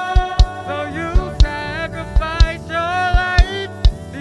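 A gospel band's recorded song: a drum beat that strikes in pairs about once a second, under sustained chords and a lead melody that slides up and down in pitch.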